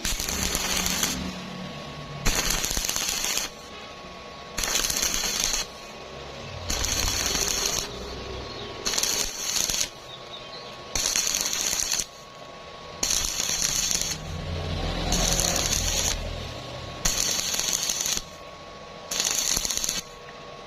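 Electric arc welding crackling on thin square tube in short bursts of about a second each, about ten of them, stopping and restarting roughly every two seconds. This is the intermittent stitch technique used to keep thin metal from burning through.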